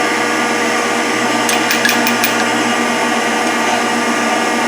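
Rockford hydraulic planer's hydraulic pump and drive running with a steady hum and whine, joined by a few light metallic clicks about one and a half to two seconds in as a table stop is adjusted.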